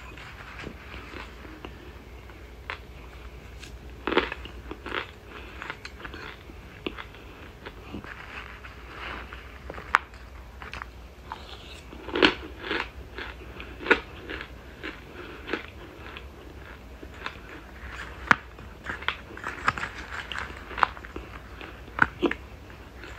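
A person biting and chewing chunks of cornstarch close to the microphone: irregular crisp crunches, some much louder than others, scattered throughout.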